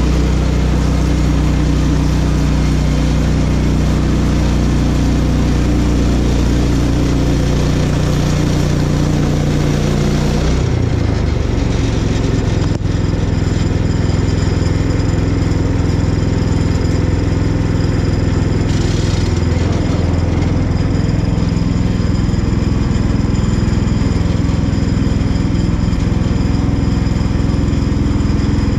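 Woodland Mills portable bandsaw mill running on its small gas engine, the blade sawing lengthwise through a small cherry log to square it into a 4x4. About ten seconds in the engine's steady note shifts, and it then keeps running.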